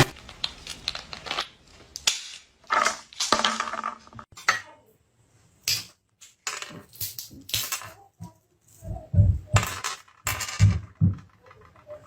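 Irregular series of short clattering knocks and clinks, like hard objects striking or tumbling on a hard surface, with brief quiet gaps between clusters.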